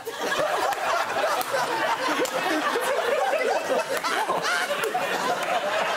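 Studio audience laughing, many voices overlapping.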